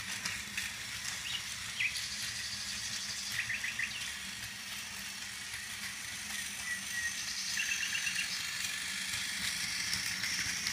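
Battery-powered motorized Thomas the Tank Engine toy train running steadily, its small motor giving a constant hum and its wheels a light rattle on plastic track while it pulls a long line of cars. A few short high chirps come twice.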